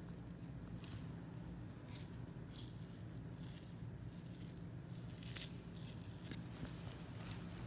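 Boning knife cutting through the fat of a Japanese Black wagyu outer plate, with short wet squishing and tearing sounds at irregular intervals as the fat layer is peeled back by hand. A steady low hum runs underneath.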